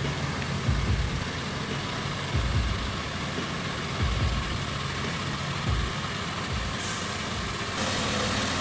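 Heavy-haul trucks' diesel engines running under load as the convoy climbs a steep grade: a steady rumble with irregular low swells.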